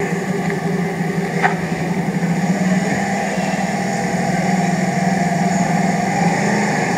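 Motor scooter's small engine running steadily as it rides up the street, with a short click about a second and a half in.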